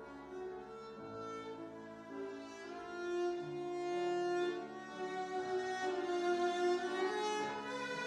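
Viola and grand piano playing classical chamber music, the viola bowing long held notes over the piano accompaniment.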